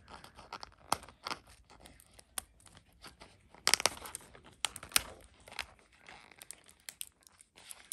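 Fingers picking and peeling at the plastic tape seal on a Rainbocorns surprise egg's wrapping: scattered small crinkles and tearing sounds. There is a louder rip of the wrap about four seconds in and another about five seconds in.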